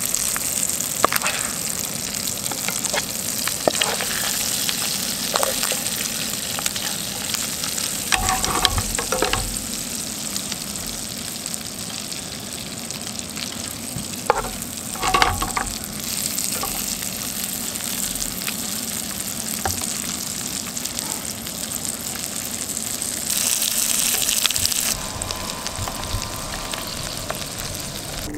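Whole trout sizzling steadily as it sears in butter in a skillet, with a metal spoon knocking and scraping against the pan a few times while the butter is basted over it.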